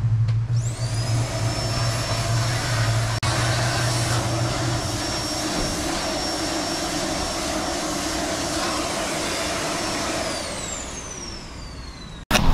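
A small high-speed motor whines up to speed about half a second in, runs steadily, then winds down near the end before a sudden cut.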